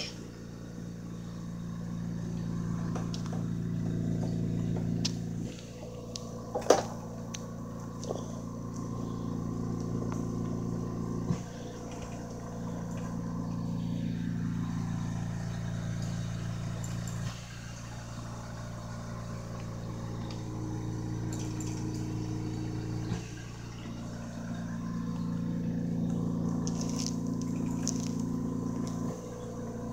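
Low, steady motor hum that swells and drops back every five or six seconds, with a few short sharp clicks, the loudest about seven seconds in.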